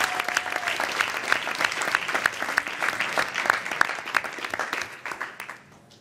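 Audience applauding, many hands clapping densely, dying away about five seconds in.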